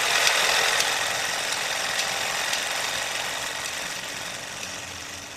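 Pencil-scribbling sound effect: a dense, scratchy hiss with irregular ticks, fading out slowly.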